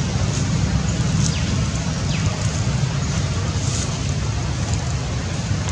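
Steady outdoor background noise: a constant low rumble under an even hiss, with a few faint short high sounds.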